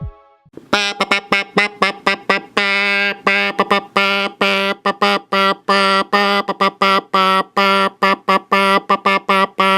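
Morse code: a single low steady tone keyed on and off in a fast run of short and long beeps, starting just under a second in.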